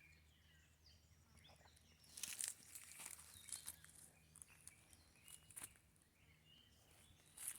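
Footsteps crunching through dry leaves and brush: an irregular run of crackles starting about two seconds in, the loudest just after that and again near the end.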